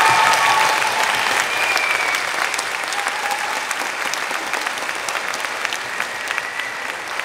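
Audience applauding, loudest at the start and slowly dying down.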